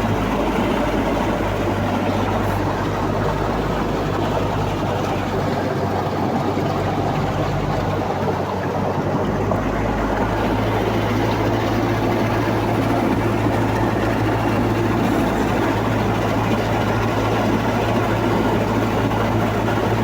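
Toyota 109 hp engine of a wheeled amphibious all-terrain vehicle running steadily with a constant low hum while the vehicle swims afloat.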